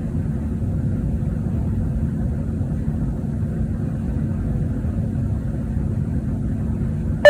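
Steady low rumble of background noise with a faint constant hum. At the very end, a loud electronic chime starts suddenly.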